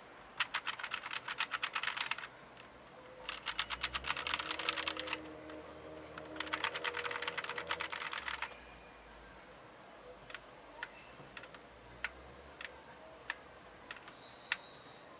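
Rapoo KX mechanical keyboard with yellow switches being typed on: three quick runs of keystrokes, about eight clicks a second, followed by single keypresses spaced roughly half a second to a second apart.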